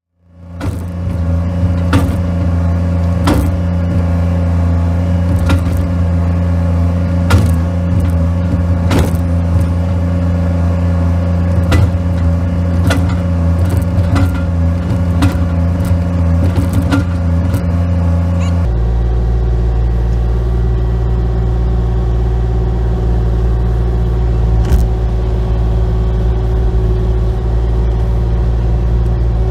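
Vehicle engine running steadily, with sharp clicks or knocks every second or two. About two-thirds of the way through, the sound cuts to a different, deeper steady engine drone.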